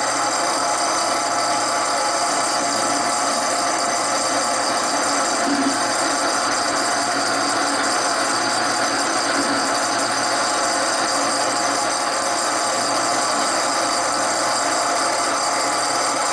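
Power saw running steadily while cutting through a piece of metal.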